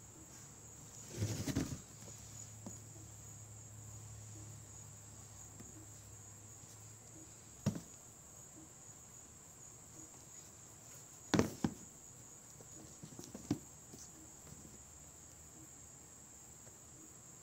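Faint handling noise as a sneaker and its cardboard shoebox are moved about: a short rustle, then a few scattered knocks. Under them is a steady high-pitched whine, with a low hum that stops about halfway through.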